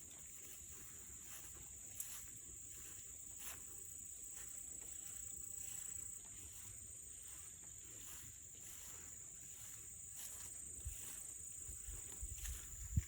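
Insects buzzing in a steady high-pitched drone, with a few faint clicks.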